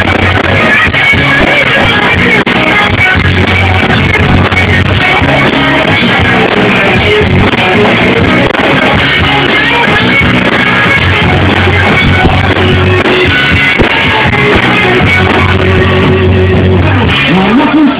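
Live rock band playing loud, with electric guitar over a heavy bass line, in an instrumental stretch without vocals; near the end a voice slides in.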